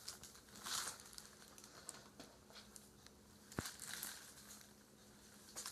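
Faint crinkling and rustling of a bag as a cat noses around inside it, with a sharp click about three and a half seconds in.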